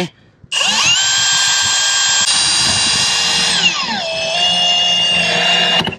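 Cordless drill driving a new screw into a metal roof seam. The motor whine starts about half a second in, drops to a lower pitch a little past halfway, and cuts off just before the end.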